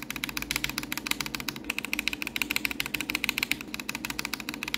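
Fast typing on a Gamakay K66 mechanical keyboard fitted with pudding keycaps: a rapid, even patter of key clicks.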